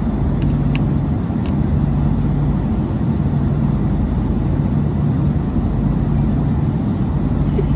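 Steady engine drone heard inside an airliner cabin, with a constant low hum and a few faint clicks in the first second or so; it cuts off abruptly at the end.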